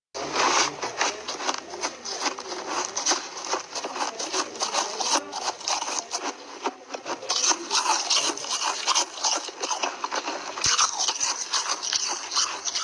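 Balls of ice being bitten and chewed, a dense, irregular run of sharp crunches and cracks between the teeth.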